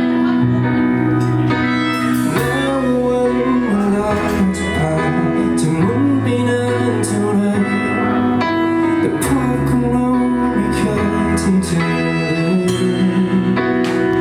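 Live band music led by guitar over sustained bass notes that change every second or two.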